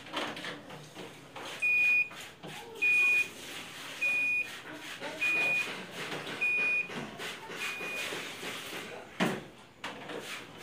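A 7 kg top-loading washing machine beeping its end-of-cycle alert: six identical high beeps, each about half a second long and a little over a second apart, signalling that the wash is finished. A single knock follows near the end.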